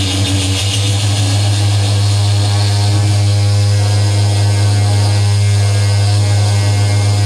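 Loud, steady electronic drone from effects pedals and a mixer played live: a heavy low hum with many steady tones layered above it and a hiss on top.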